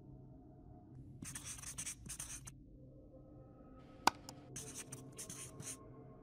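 Scribbling sound effect of a pen scratching across paper, in two runs of quick strokes, with one sharp mouse-style click between them about four seconds in.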